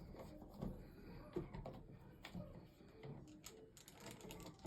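Faint, irregular light clicks and taps of small screws and dash trim parts being handled with a screwdriver.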